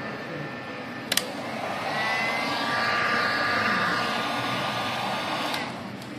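Electric heat gun blowing, a steady rush of air with a faint fan whine that grows louder about two seconds in and drops away near the end, with a sharp click about a second in. It is warming the vinyl graphic so the film softens and sets down.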